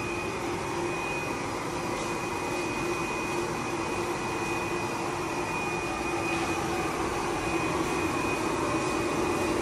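Semi-automatic filter bag body welding machine line running steadily: a constant whirring noise with a thin high whine and a lower hum.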